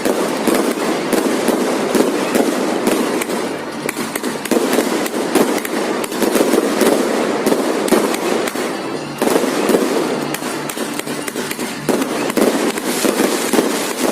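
Fireworks display: a dense, unbroken barrage of bangs and crackling, many reports a second overlapping one another.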